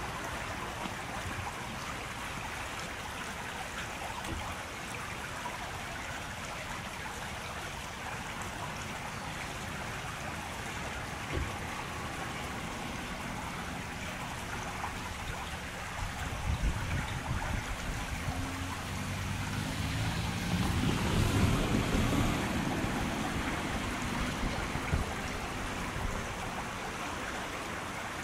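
A steady background hiss, then past the middle an electric commuter train draws near at crawling speed, its motor tones climbing and loudest about three quarters of the way through before easing off. It is running slowly as a post-rain safety-check train.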